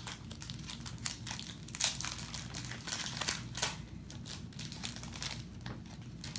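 Foil booster pack wrappers crinkling as they are handled and opened, in a run of irregular crackles that are loudest about two seconds in and again around three and a half seconds in.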